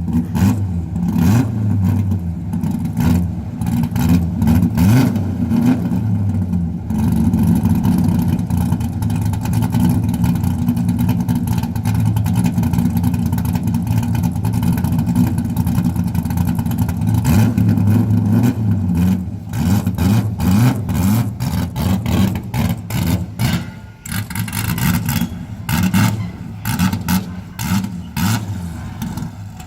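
LS V8 engine in a Nissan 240SX S14 drift car, running loudly, its pitch wavering up and down as the revs rise and fall.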